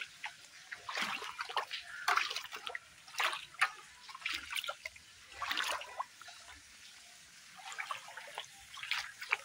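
Shallow rainwater pooled on a flat roof splashing and sloshing as a foot in a rubber flip-flop sweeps through it to push the water off. The splashes come irregularly, about once a second, with a quieter lull a little after the middle.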